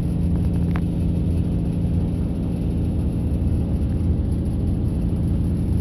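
Fishing boat's engine running steadily, heard on board as a low hum, with a brief high squeak under a second in.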